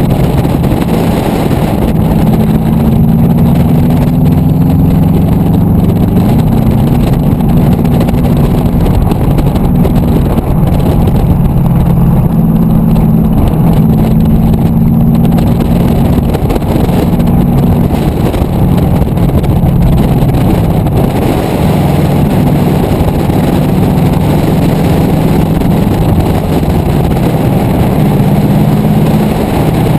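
Subaru Impreza WRX's turbocharged flat-four engine driven hard on dirt, its pitch repeatedly climbing and dropping with throttle and gear changes, over a steady rush of wind and road noise.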